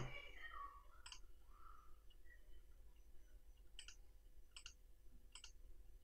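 Four faint computer mouse clicks, spaced irregularly, against near silence.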